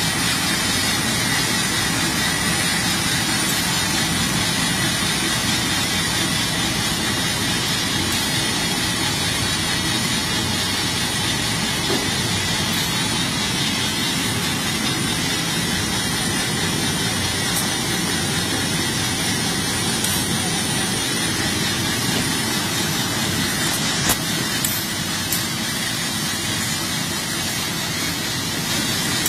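SHH-1600B2A automatic carton folder-gluer running steadily, its belts, rollers and drive making an even mechanical noise with a steady high whine. A few sharp clicks near the end.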